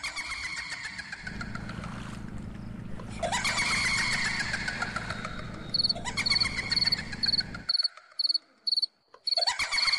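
Jungle night-ambience sound effect. An animal call repeats about every three seconds, each one a quick rising note followed by a run of clicks falling in pitch. From about six seconds in, a cricket chirps in rapid pulses. A low rumble under it cuts off suddenly near eight seconds.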